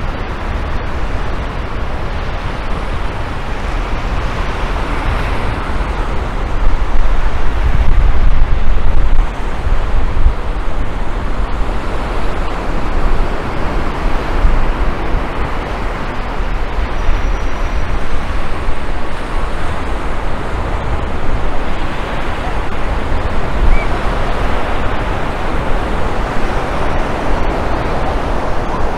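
Surf washing on a sandy beach with wind buffeting the microphone, a steady rushing noise that swells for a couple of seconds about seven seconds in.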